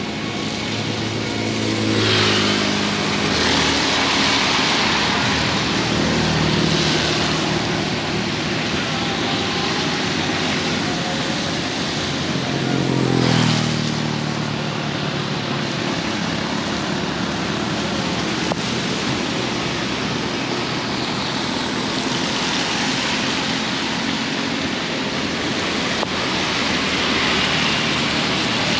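Heavy rain falling steadily, with road vehicles passing through it. Two go by close, about two seconds in and again about halfway, their engine note dropping in pitch as they pass.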